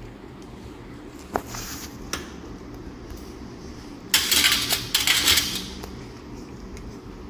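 Steel surgical instruments clinking: a sharp click about a second and a half in, then about a second and a half of metallic clattering and rattling past the middle.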